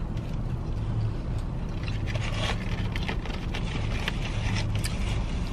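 Steady low hum of a car running, heard inside the cabin, with scattered small crunches and rustles of people eating fried chicken.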